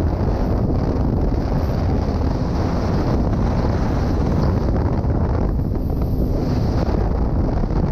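Racing snowmobile running at speed, about 35 mph, with heavy wind buffeting on the on-board camera microphone: a steady, dense rush that does not let up.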